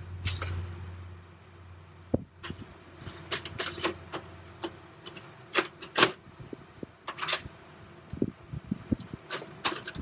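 An Asus DVD-RW optical drive being slid by hand into a computer case's 5.25-inch drive bay: a run of scrapes and sharp clicks of the drive's metal housing against the bay, the sharpest about six seconds in.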